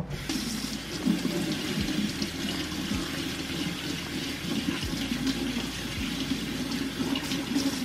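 Kitchen faucet running steadily into the sink, turned on at the start and shut off near the end.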